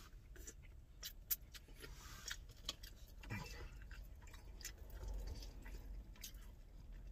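A person chewing and biting into chicken wings, giving faint, irregular clicks and smacks.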